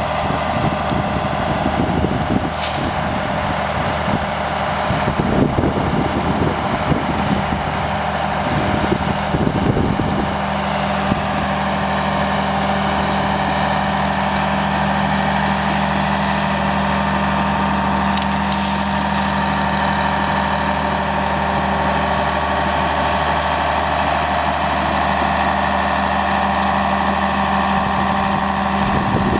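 Allis-Chalmers HD11 crawler dozer's diesel engine running steadily under load while pushing brush. Branches crack and snap against the blade through roughly the first ten seconds, then it settles into a steady engine drone.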